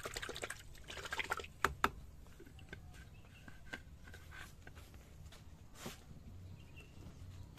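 Water in a plastic bucket being swirled and splashed by hand while a pesticide mix is made up. Two sharp clicks come a little under two seconds in, followed by scattered small ticks and drips.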